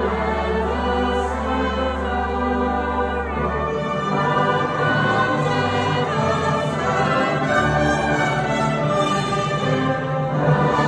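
Choir and orchestra with brass performing a carol together: full, long-held chords over a deep sustained bass note that drops out just under four seconds in and comes back later for a few seconds.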